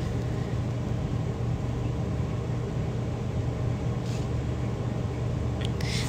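A steady low hum with an even hiss over it, the background noise of a room heard through a phone's microphone.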